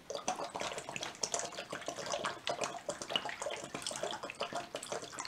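Water pouring out of an upturned plastic bottle through the mesh over its mouth and splashing into a clear plastic tub, starting suddenly once the bottle is tilted and the surface-tension seal across the mesh breaks.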